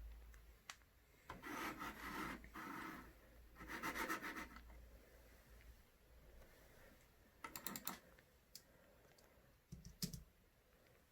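Several short bursts of rubbing and scratching, like handling noise, with a couple of sharp clicks near the end.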